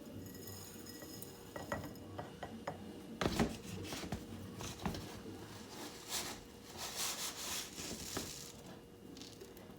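Dry rolled oats being scooped and poured into a glass mason jar: scattered clinks and knocks of the measuring cup against the glass, loudest about three seconds in, and a rustling pour of oats midway through.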